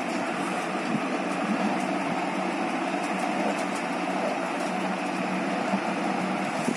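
Steady whirring background noise, even and unchanging, with a few faint ticks.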